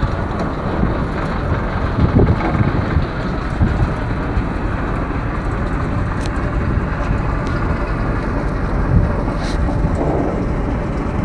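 A river passenger boat under way, heard from on board: its engine's steady low rumble mixed with a rushing noise of air and water.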